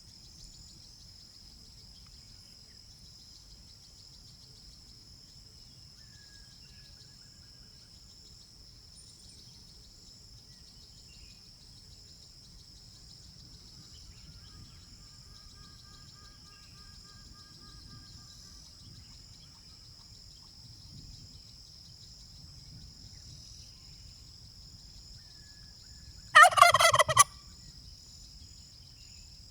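A domestic turkey gobbling once, a loud rapid warbling burst of about a second, near the end. A steady high insect chirring carries on throughout, with a few faint bird calls.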